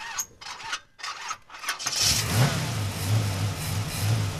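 Car engine sound effect: a few short sputtering bursts, then, about two seconds in, the engine catches with a brief rush and settles into a steady, throbbing rumble.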